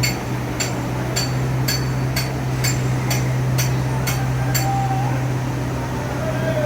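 Hammer striking steel with a ringing clang, about two blows a second, ten in all, stopping about two-thirds of the way through, over a steady low hum of plant machinery.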